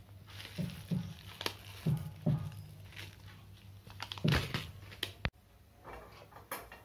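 Scattered soft knocks and taps from an aluminium ring cake pan and a sprinkles packet being handled on a tabletop, the loudest as the pan is lifted, followed by one sharp click about five seconds in.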